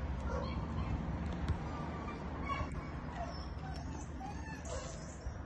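Faint short animal calls, like hens clucking, scattered over a steady low rumble, with a few light clicks.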